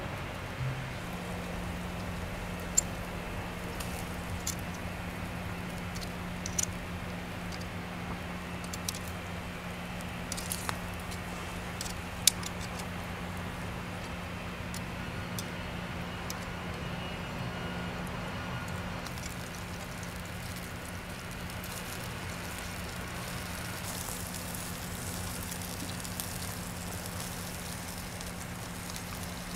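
Pork slices sizzling on a wire grill over a charcoal fire, with a handful of sharp crackles from the coals in the first half. A steady low hum runs underneath.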